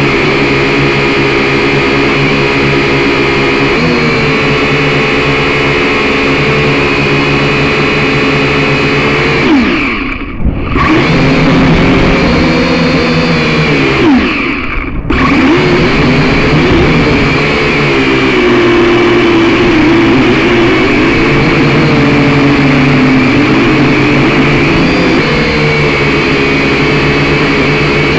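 Syma X5C quadcopter's four small electric motors and propellers whining steadily, close to the onboard camera. Twice, about ten and fifteen seconds in, the whine briefly drops away and its pitch bends down and back up before it settles again.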